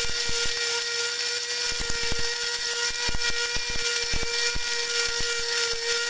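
Small electric blade spice grinder running steadily, grinding whole cardamom pods with their husks: a constant motor whine with irregular sharp clicks of the pods striking the stainless-steel cup.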